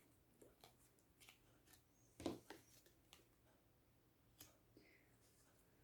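Tarot cards being handled on a table: a few soft clicks and taps over near silence, the loudest about two seconds in.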